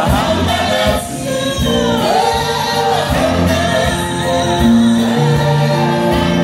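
A small group of women and a man singing a song together into microphones, amplified through the stage speakers.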